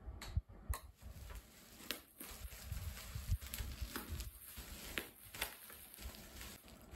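Bubble-wrap plastic crinkling and crackling as it is cut open with scissors and pulled by hand, with irregular sharp snips and clicks.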